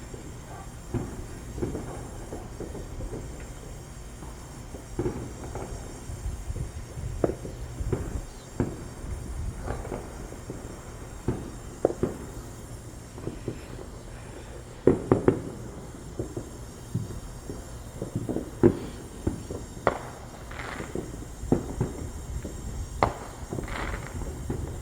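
Fireworks and firecrackers popping in the distance, irregular single bangs every second or so over a steady low rumble, with a quick cluster of louder pops about fifteen seconds in.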